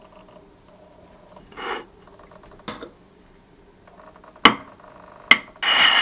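Spoon and knife against a ceramic bowl and plate as a baked chocolate cake is lifted out and cut: a soft scrape, then three sharp clinks, then a louder scrape about a second long near the end.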